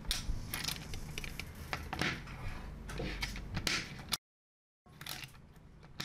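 Small gold-coloured magnetic balls clicking and rattling against one another as a strip of them is folded and pulled apart into blocks: many quick, sharp clicks. The sound cuts out briefly just after four seconds in, then the clicking resumes more quietly.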